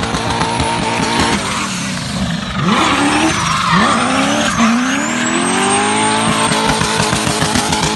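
Drift car's engine running at high revs while its rear tyres spin and screech in a smoky slide. The revs drop and climb back several times around the middle.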